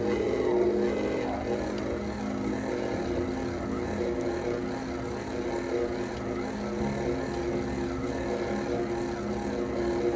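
Electric stand mixer running steadily, its motor whirring as it kneads a stiff bread dough in a steel bowl.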